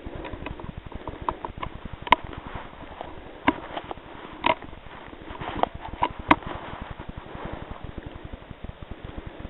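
Handling noise from the rifle and its scope-mounted camera: a close steady rustle with a few sharp clicks and knocks, the loudest about two and six seconds in.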